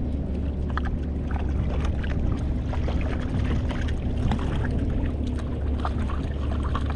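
Choppy sea water lapping and slapping against a plastic fishing kayak's hull over a steady low rumble, with scattered small ticks and splashes.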